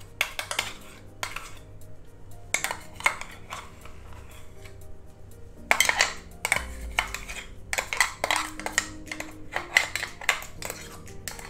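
Metal spoon scraping and knocking inside a steel mixer-grinder jar, clearing out ground banana paste over a steel pot of batter: a run of irregular clinks and scrapes.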